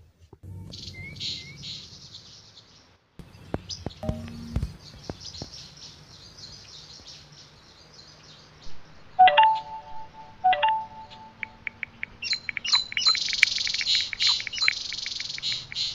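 Birds chirping, with two short phone message chimes about nine and ten and a half seconds in. Near the end comes a quick run of clicks under louder chirping.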